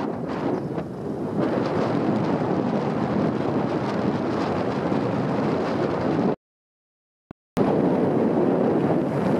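Wind buffeting the microphone of a moving moped, with a steady rush of road and vehicle noise. About two-thirds of the way through, the sound drops out to complete silence for about a second, then comes back.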